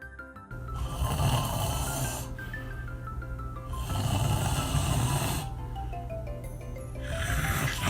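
A person snoring: three long snores about three seconds apart, each the loudest thing heard, over background music with a stepping melody.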